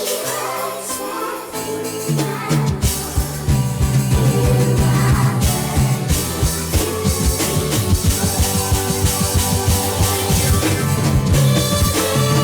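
Live band music: held chords with a steady drum beat that comes in about two seconds in, with some singing.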